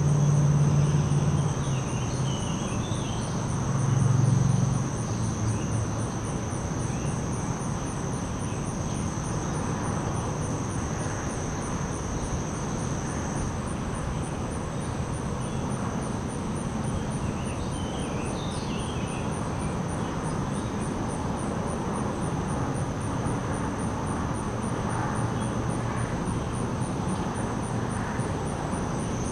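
Crickets trilling: one continuous high trill, with a second, higher insect call pulsing at a rapid, even rhythm. Shallow water trickles over stones beneath. A low hum, like a distant engine, swells in the first second and again about four seconds in.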